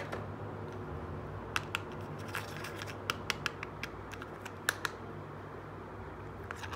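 Small hard plastic toy cooking pot and its plastic lid and insert being handled, giving a run of light sharp clicks and taps, about a dozen, from early on until about five seconds in.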